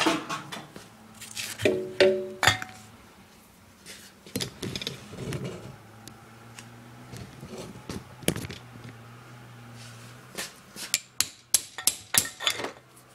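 Hand tools working a rusted bolt on an old Maytag gas engine: scattered metal clinks and knocks, with a ringing clink about two seconds in. Near the end comes a quick run of ratchet clicks as the socket wrench turns the bolt.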